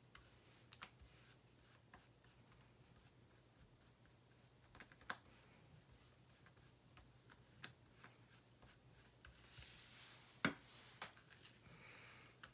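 Near silence with a faint low hum, broken by a few light clicks and soft scrapes from a spoon spreading filling over flattened bread dough. One sharper click comes about ten seconds in.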